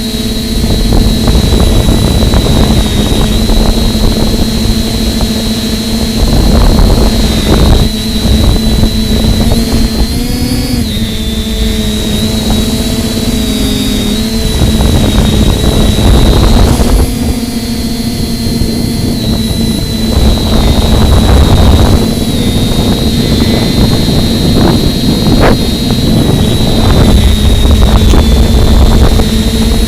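Model plane's electric motor and propeller droning steadily with a high whine, the pitch rising briefly a couple of times as the throttle changes. Strong wind buffets the microphone in low rumbling gusts throughout.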